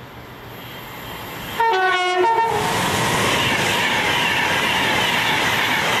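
Class 390 Pendolino electric train running through at speed: its noise builds as it approaches, it gives a short two-tone horn blast about a second and a half in, and then it passes close by with a loud, steady rush and a high whine.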